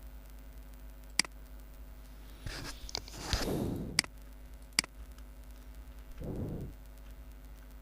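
Four sharp, single computer clicks spread over a few seconds, with two short soft rushing noises between them, over a steady faint hum.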